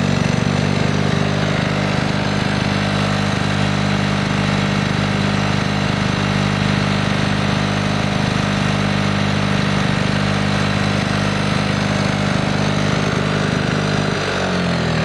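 1976 Lawn-Boy model 5245 push mower's two-stroke engine running steadily, its pitch falling as it slows about a second before the end.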